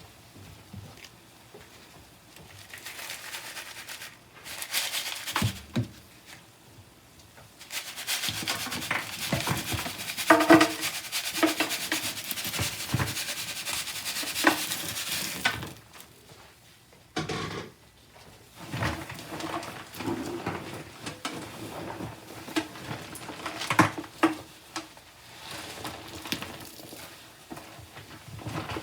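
Wet sponges being squeezed and rinsed, squishing and splashing water in irregular bursts, with a long run of several seconds in the middle.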